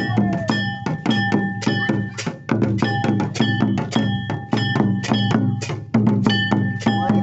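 Santali Sohrai folk music: a fast, steady beat of drum strokes under held tones that ring at fixed pitches.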